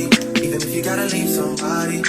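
Background music with a beat and held notes.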